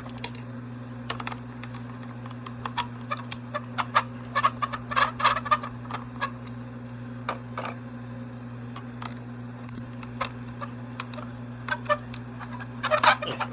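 Irregular clicks and taps of small screws and plastic parts being handled while a toy's gearbox is taken out, over a steady low electrical hum.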